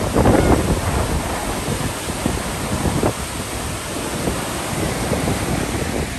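Steady rush of Lower Yosemite Fall and the white-water creek below it, with wind buffeting the microphone.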